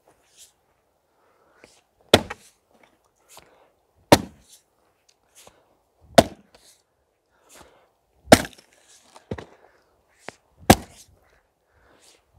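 Fiskars IsoCore XXL splitting maul striking and splitting firewood rounds: five sharp blows about two seconds apart, each followed by a few smaller knocks of wood.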